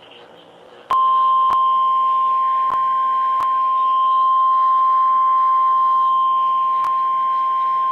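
EAS / NOAA Weather Radio warning alarm tone: a single steady 1050 Hz tone that starts about a second in and sounds on without a break, with a few brief clicks through it.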